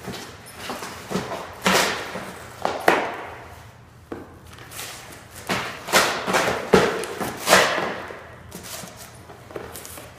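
Two terriers chewing at cardboard boxes and shaking them: irregular rustling, ripping and crackling of cardboard, with thumps as the boxes knock on a hard floor. The loudest stretches come about three seconds in and again between about six and eight seconds in.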